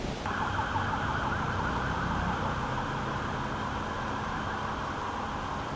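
Emergency vehicle siren warbling rapidly, starting just after the start and cutting off abruptly near the end, over a low vehicle rumble.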